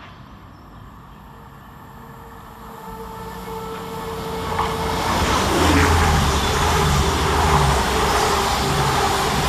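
Two coupled CrossCountry Class 220 Voyager diesel-electric trains approaching and passing at speed, engine hum and wheel-on-rail noise growing steadily louder. A tone drops in pitch as the front goes by about five to six seconds in, and the train then runs past steadily.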